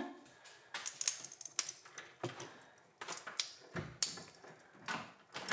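Irregular clicks, taps and rubbing as bare hands turn and grip a large ice ball frozen in a water balloon, fingers and nails knocking on and scraping the ice and the latex skin, a few sharp clicks a second, unevenly spaced.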